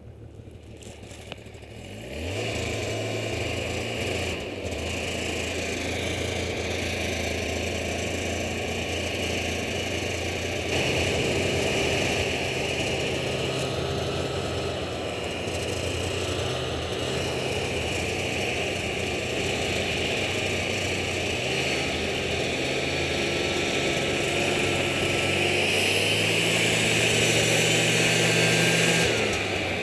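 Snowmobile engine running under way through deep snow, picking up sharply about two seconds in and growing louder toward the end, with a dip just before it ends.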